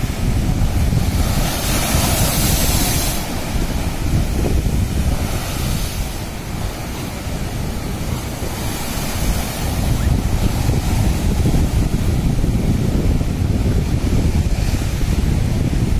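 Rough surf breaking and washing over a seawall of large sand-filled bags. Waves hiss in more loudly twice, about two seconds in and again near the middle, under heavy wind buffeting on the microphone.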